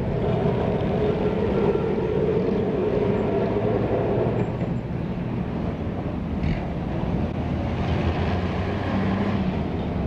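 Kolkata electric tram running along the street: a steady low hum and rumble, with a higher drone that fades out about halfway through.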